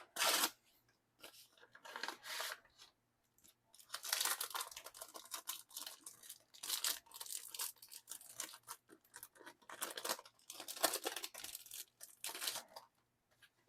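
A package of photo cards being opened by hand: irregular bursts of tearing and crinkling packaging, coming in short clusters with brief pauses between them.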